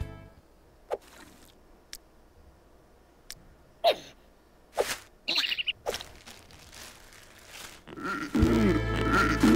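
Short cartoon sound effects and brief wordless squeaks and gasps from the animated larvae, spaced out with quiet between them. Background music comes back in about eight seconds in.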